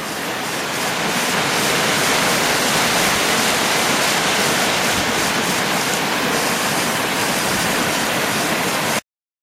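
River rapids: whitewater rushing loud and steady, swelling over the first two seconds and cutting off abruptly near the end.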